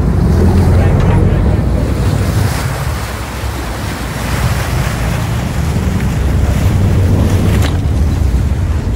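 Sport-fishing boat's engines running low and steady, with water churning along the hull and wind buffeting the microphone.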